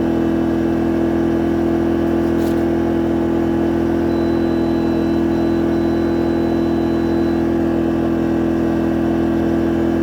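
Powerhorse 2300i inverter generator running at a steady, unchanging pitch while powering a window air conditioner. It holds its speed under the load without bogging.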